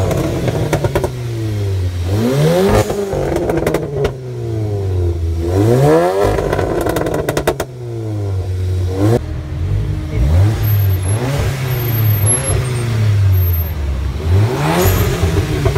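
Tuned car engine revved again and again in quick blips, each rising and then falling in pitch, with bursts of sharp cracks between some of the revs.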